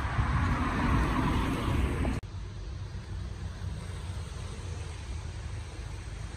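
Street traffic: a car passes for about two seconds, then the sound cuts off abruptly to a steady low rumble of city background noise.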